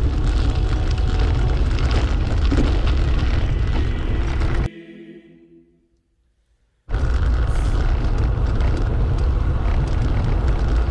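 Heavy wind rumble buffeting a camera microphone while riding. It cuts off about halfway through, fades away briefly, leaves about two seconds of silence, then comes back abruptly.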